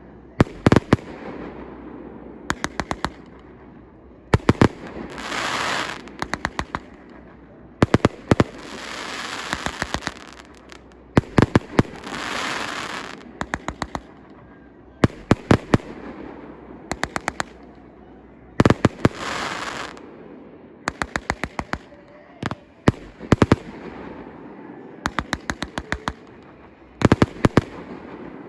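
Fireworks salute going off: tight clusters of sharp bangs every second or two, with stretches of hissing crackle between some of the volleys.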